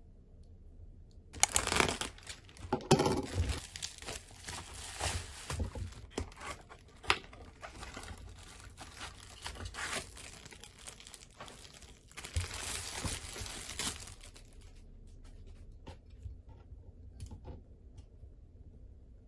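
Packaging being torn open and crinkled by hand, in irregular crackling bursts with sharp clicks, loudest in the first couple of seconds. It stops about 14 s in, leaving only a few faint handling clicks.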